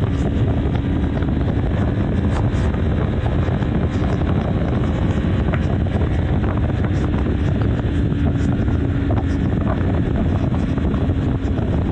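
BMW G310 R's single-cylinder engine running steadily at highway cruising speed, under a constant rush of wind over the microphone.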